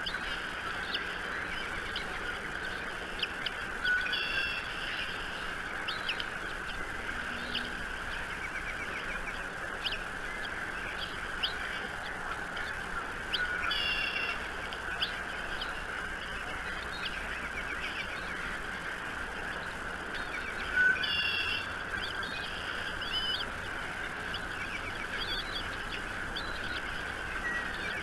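Wild birds chirping over a steady outdoor background noise, with a louder, longer call four times: about 4, 13 and 21 seconds in and again near the end.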